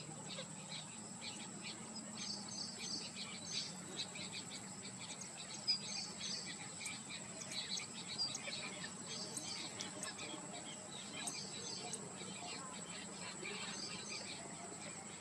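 A flock of Bengal weavers chattering, with many short, rapid chirps overlapping, over a steady thin high tone.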